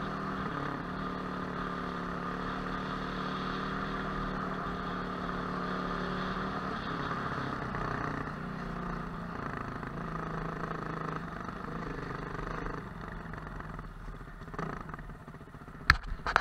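Motorcycle engine running at a low, steady speed while the bike rides along, easing off and quietening over the last few seconds as it slows to a stop. A few sharp knocks come right at the end.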